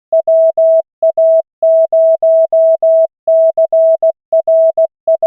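Computer-generated Morse code from the LCWO.net trainer: a single steady tone keyed into short dots and longer dashes, sending a practice callsign at 16 words per minute with standard character spacing.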